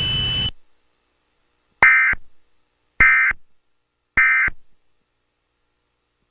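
Emergency Alert System end-of-message signal: three short bursts of SAME digital data tones, each about a third of a second long and a little over a second apart, marking the close of the alert. A steady high tone cuts off about half a second before the first burst.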